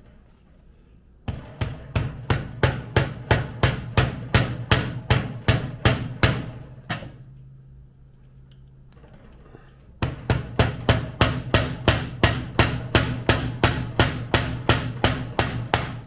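Quick, evenly spaced hammer taps, about three or four a second in two runs of some six seconds each, driving an oil seal into a Honda CRF80 engine's crankcase, with a low ring from the metal after each strike.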